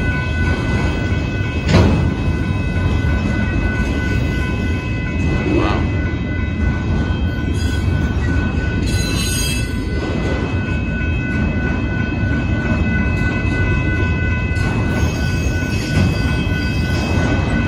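Union Pacific freight train of autorack cars rolling past at a grade crossing, with a loud, steady rumble of wheels on rail. A sharp knock comes about two seconds in, and short wheel squeals follow mid-way.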